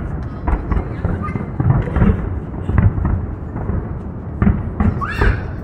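Fireworks going off as a dense, irregular string of deep booms, several a second, with people's voices among them.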